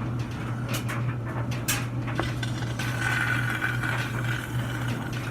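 Steady low hum of a running laundry machine, with a few light clicks in the first half and a faint hiss from about halfway through.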